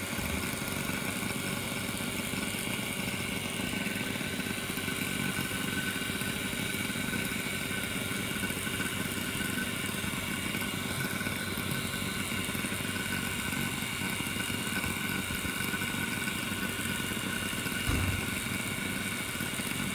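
Steady hum of a small electric motor running on the repair bench, even and unchanging, with one dull knock near the end.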